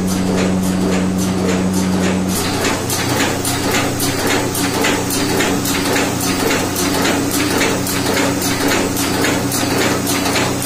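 Automatic agarbatti (incense-stick) making machine running: a steady motor hum with a regular clacking about three times a second as the machine works through its stick-forming cycle. The hum changes pitch about two seconds in.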